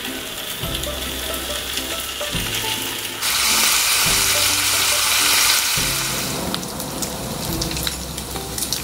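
Bacon strips sizzling and crackling in hot fat in a frying pan, the sizzle growing louder about three seconds in.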